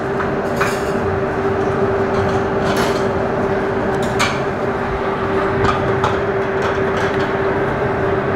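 Steady drone of commercial kitchen machinery: an even rush with one constant hum. A few soft crackles and taps come from a wilted banana leaf being folded around fish on a steel tray.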